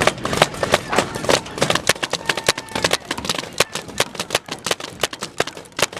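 Paintball guns firing in rapid, irregular pops, several shots a second.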